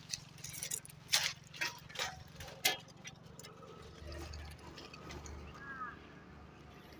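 Walking over loose stones and past dry brush: a few sharp crunches and snaps in the first three seconds, then quieter shuffling and rustling.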